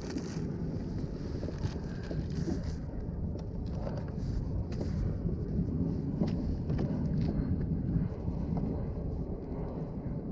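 Wind rumbling steadily on the microphone, with a few small clicks and crinkles from hands handling a plastic bait bag.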